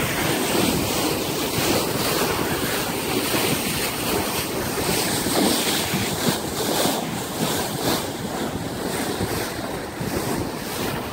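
Wind buffeting the microphone over the rush of a motor yacht's bow wave cutting through the water: a steady, gusty rushing noise.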